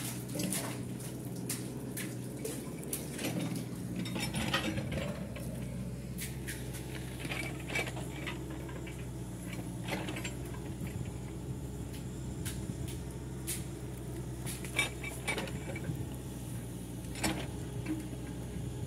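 Bucket knocking and scraping in a shallow well as it is lowered and hauled on its rope, making irregular clicks and clinks over a steady low hum.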